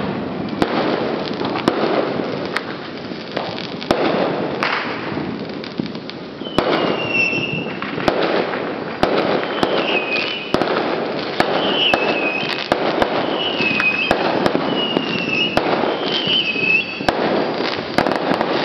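Fireworks going off in quick succession: sharp bangs about once a second over continuous crackling, with short high whistling squeals recurring in the second half.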